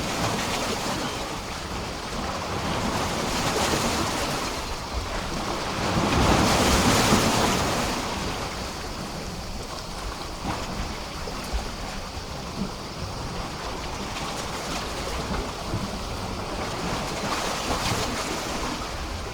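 Sea waves washing and splashing against a pier, swelling and ebbing, with the biggest surge about six to eight seconds in and small sharp splashes after it.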